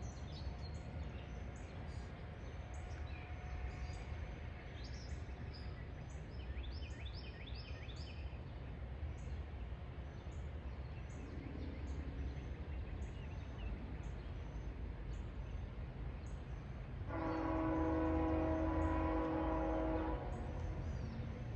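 Steady low rumble with a few bird chirps, then a locomotive air horn sounds one long blast of about three seconds near the end, the train announcing its approach.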